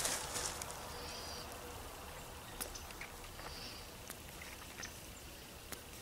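Quiet outdoor ambience with scattered soft clicks and two faint, short bird chirps, one about a second in and another a few seconds later.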